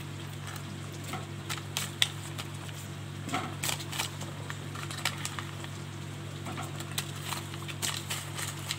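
Wooden spatula tapping and scraping against a metal wok as fried chicken pieces are stirred into simmering chilli chicken gravy: irregular light clicks, the sharpest about two seconds in, over a steady low hum.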